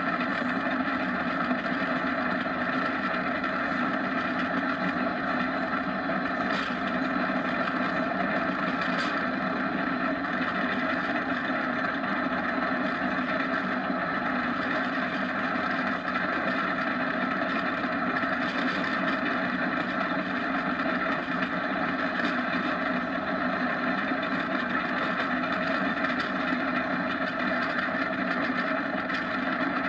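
Steady rushing noise of a downhill kart running fast on asphalt: wind and rolling wheels, unchanging in level throughout.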